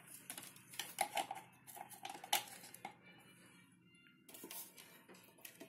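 Irregular metallic clicks and clinks of hands handling the opened radiogram chassis and its cables, over a faint steady low hum.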